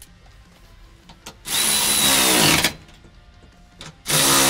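Cordless electric ratchet running a 14 mm socket onto seat-mount bolts, tightening them down in two runs of a little over a second each, its motor pitch sagging near the end of each run as the bolt snugs up.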